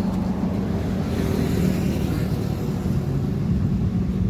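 Diesel truck engine idling steadily with a low hum.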